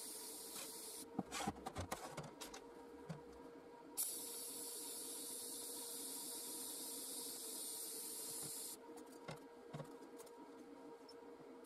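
TIG welding arc hissing steadily, in two stretches: one ending about a second in, and a longer one of about five seconds starting around the four-second mark. In the gaps, the arc is off and there are scattered clicks and knocks as the torch, filler rod and work are handled.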